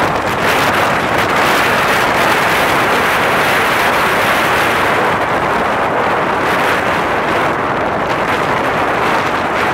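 Strong tropical-storm wind buffeting the microphone over breaking surf: a loud, steady rush of noise.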